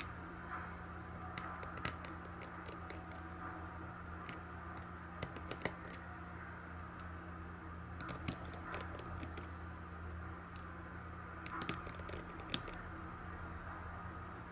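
Small, irregular clicks and ticks from a Phillips screwdriver working the tiny screws and metal cover plates inside an iPhone 6s, some coming in quick clusters, over a steady low hum.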